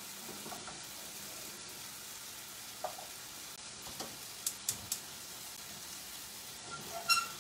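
Spiced chickpeas sizzling steadily in a frying pan as a metal spoon stirs them, with a few sharp clicks of the spoon against the pan and a louder ringing metallic tap near the end.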